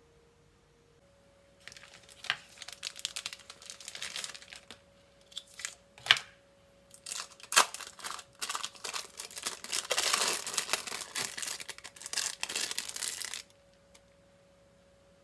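Crinkling of thin plastic film as individually wrapped cheese slices are peeled out of their wrappers, with a few sharp crackles. It starts about two seconds in and stops near the end.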